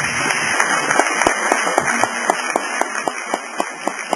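Audience applause: many people clapping, dense at first and thinning out to scattered single claps toward the end.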